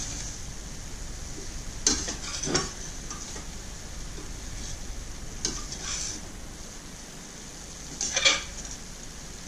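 Chicken, mushrooms and vegetables sizzling steadily in a stainless steel sauté pan as a metal spatula stirs them, with about five scrapes of the spatula against the pan, the loudest near the end. The chicken is giving off its juices into the pan.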